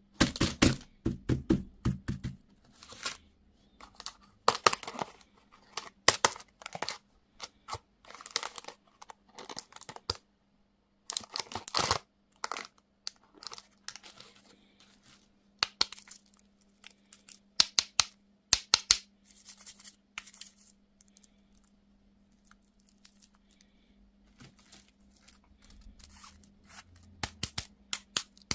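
Candy wrapper torn open and crinkled by hand: irregular crackling and ripping with short pauses, over a faint steady hum.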